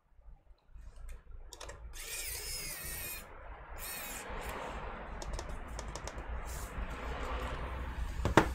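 Small screws being driven into a laptop's trackpad bracket with a screwdriver, with light clicking and handling noise and a brief high whirring twice. One sharp knock near the end.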